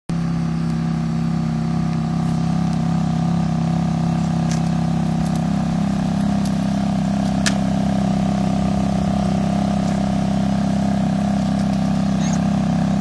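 Ferrari F430 Spider's 4.3-litre flat-plane V8 running at a steady speed, its pitch holding level, with one sharp click about halfway through.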